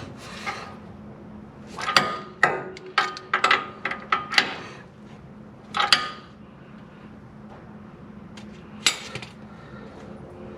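Sharp metallic knocks and clinks of hand tools on steel front-suspension parts while the spindle's castle nuts are worked on. They come as a quick run about two to four and a half seconds in, then single knocks near six and nine seconds, each with a short ring.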